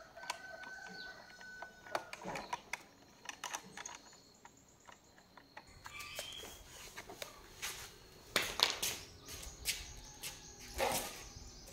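Scattered light clicks and taps of metal parts being handled on a small bench-mounted mechanism, with birds chirping in the background.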